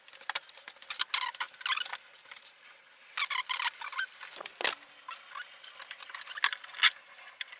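A board and a long aluminium spirit level being handled and laid on a timber frame: a string of light wooden knocks, clicks and metallic rattles.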